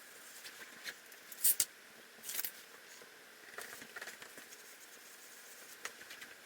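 Pencil drawing on a large sheet of paper: a few faint, short scratchy strokes, the two loudest about a second and a half and two and a half seconds in.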